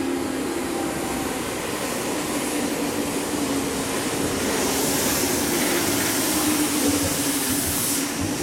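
A Meitetsu 6800 series electric train pulling into a station platform, its wheels running on the rails with a steady hum as it slows past. A high hiss builds in the second half of the arrival.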